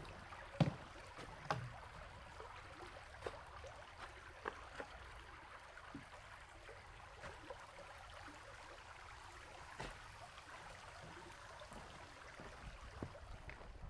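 Faint, scattered knocks of footsteps and trekking-pole taps on the boards of a wooden footbridge, over a soft outdoor hush.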